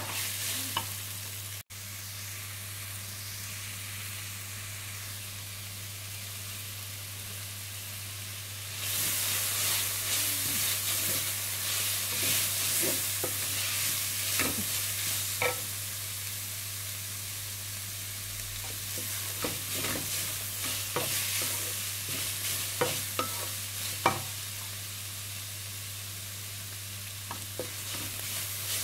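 Shredded cabbage sizzling as it fries in oil in a stainless steel pan, stirred with a wooden spatula that knocks against the pan now and then. The sizzle gets louder about nine seconds in.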